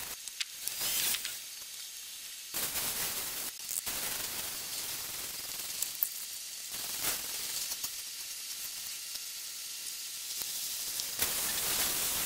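Water spraying on a car's bodywork during a hand wash: a steady high hiss, broken by several sudden cuts. In the last second it comes from a hose spray nozzle rinsing foam off a door.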